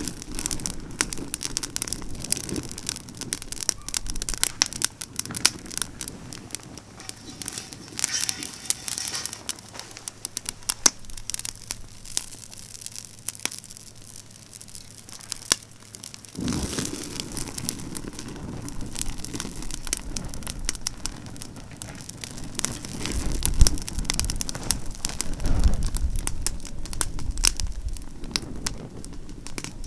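Campfire of pine branches burning briskly, crackling with many sharp pops. In the second half, wind gusts rumble over the fire.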